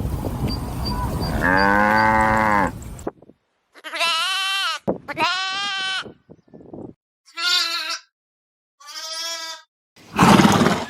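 A cow's low moo trails off, then sheep bleat four times in separate short calls. Near the end a loud, noisy burst cuts in.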